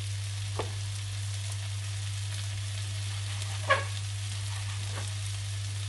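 Mushrooms, cherry tomatoes and onion sizzling steadily in a frying pan, over a constant low hum. Two short knocks from a knife on the wooden cutting board come about half a second in and, louder, just before 4 seconds.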